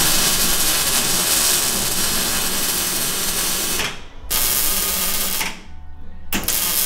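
Arc welding with a Wallius welder on a steel roof-rack light bracket: the crackling buzz of the arc in three runs, breaking off about four seconds in and again about five and a half seconds in, each time starting again shortly after. The bracket is being welded on properly after an earlier low-current weld shook loose.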